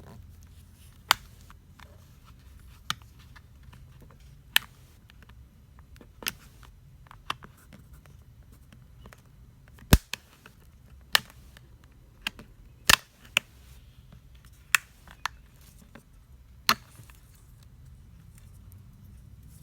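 Sharp plastic clicks and snaps, about fifteen at irregular intervals, as a thin plastic pry tool works along the seam of a ZTE Blade Z Max's back cover and its edge catches and releases.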